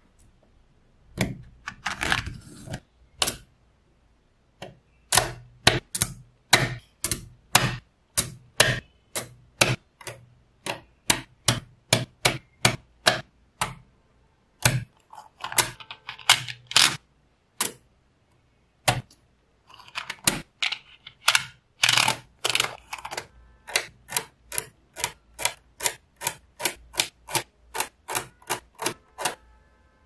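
Small neodymium magnetic balls snapping together: a long run of sharp clicks, about two to three a second, broken by a few longer stretches of scraping and rattling.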